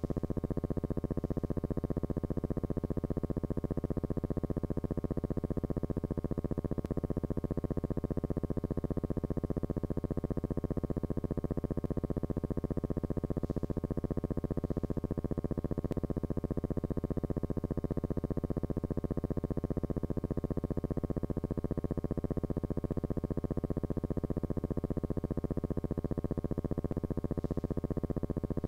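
Steady low electrical hum and buzz with a fast, even flutter. This is noise from transferring a silent film, not sound from the aircraft.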